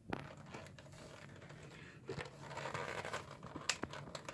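Clear plastic toy packaging crinkling and rustling as hands work a doll out of it, with a few small clicks.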